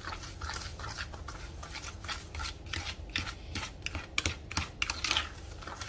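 A fork beating eggs and sugar in a bowl: quick, uneven scraping strokes of the fork against the bowl, a few a second, as the mixture is worked into a creamy paste.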